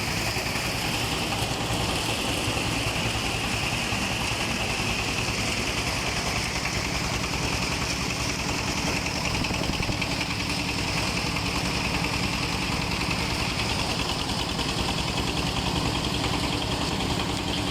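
A 36-blade chopper machine running steadily: a continuous engine hum with a high whine from the spinning blade rotor.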